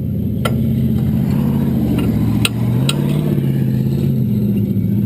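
An engine running steadily, its pitch rising briefly about two and a half seconds in, then settling back. A few sharp clicks sound over it.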